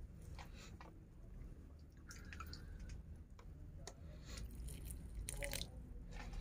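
Small squeeze watering bottle with a long spout squirting water into little succulent pots: faint, short spurts of water and drips on soil, several times.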